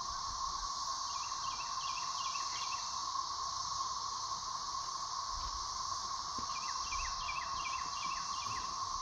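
Chorus of 13-year periodical cicadas singing overhead: a steady, unbroken drone with a low hum and a higher hiss. Twice, a short run of quick falling chirps sounds over it.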